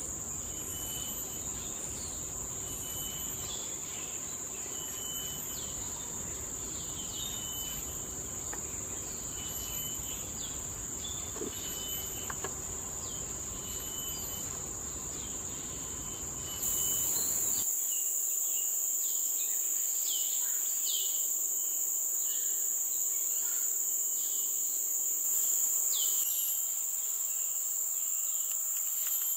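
Chorus of forest insects: a steady high-pitched drone with a pulsing chirp repeating about once a second and shorter chirps beneath it. A little past halfway the drone becomes louder.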